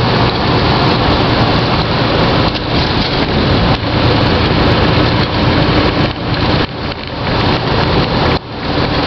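Semi truck cab at highway speed: loud, steady mix of engine, tire and wind noise. The noise dips briefly a couple of times near the end.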